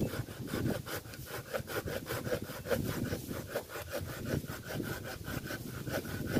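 Small HME hand saw cutting through a fallen tree branch with quick, even back-and-forth rasping strokes, about five a second. The wood is damp, so the blade cuts a little sticky.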